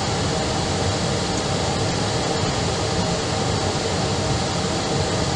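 Steady engine and airflow noise of an Airbus airliner heard from inside the cabin as it taxis, with a faint steady hum.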